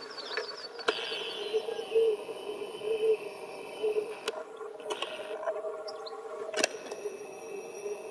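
Quiet outdoor ambience: runs of high chirps from small wildlife over a low steady drone, broken by three sharp clicks.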